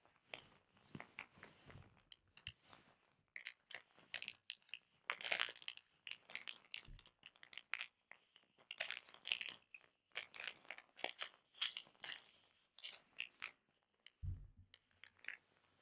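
Handheld roller-ball massager rolled over the back of a hand close to the microphone: irregular clicking and light rattling of its small roller balls, with soft rubbing. A soft low thump near the end.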